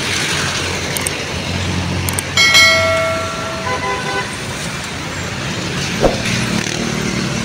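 Street traffic noise, with a vehicle horn sounding once for about a second roughly two and a half seconds in.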